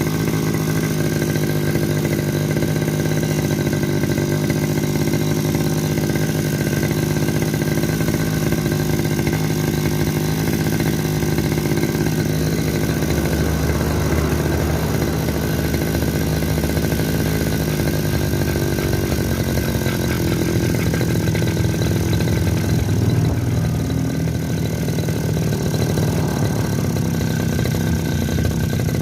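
Two-stroke grass-cutter (brush cutter) engine running at a steady speed, with small changes in pitch around the middle and again after about twenty seconds.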